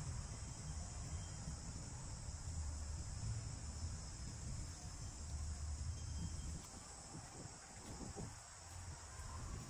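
Steady high-pitched chirring of crickets or other insects, over a low rumble that eases off about two-thirds of the way through.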